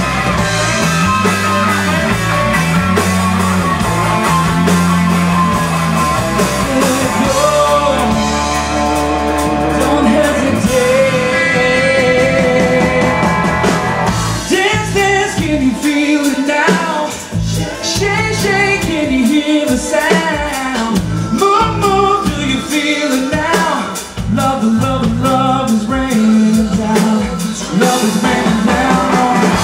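Live Christian pop-rock band playing loudly. Strong bass notes carry the first part, then from about halfway a lead line of bending, sliding notes comes in over the band.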